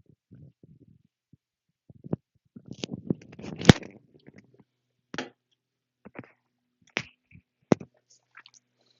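A person holding in burps: small muffled gurgling burps and gulps, then a longer rough, croaky burp about three seconds in, broken by a sharp click. Several short sharp mouth or throat clicks follow.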